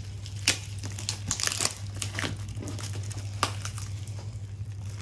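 Glossy gift-wrapping paper crinkling and rustling as a wrapped gift box is unwrapped by hand, with irregular sharper crackles now and then.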